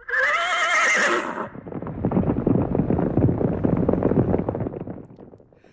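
A horse whinnies with a wavering call, then hoofbeats follow and fade away over about four seconds.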